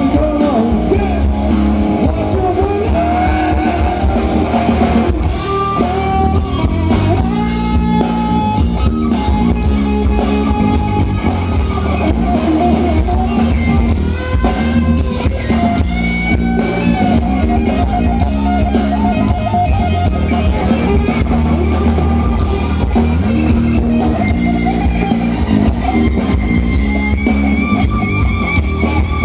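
Live rock band playing an instrumental passage with no singing: an electric guitar lead with bending, gliding notes over bass and a drum kit.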